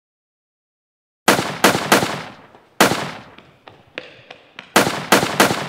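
After about a second of silence, gunshots in quick bursts: three in a row, a single one, then three more near the end, each with an echoing tail and a few fainter cracks in between.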